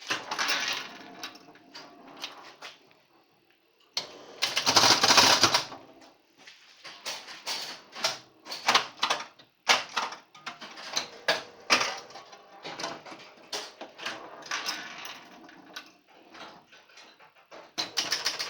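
A 1972 Bally Space Time electromechanical pinball machine in play: rapid runs of clicking and clattering from its relays, score reels and flippers. It goes almost quiet about three seconds in, then gives a loud, dense clatter just after four seconds.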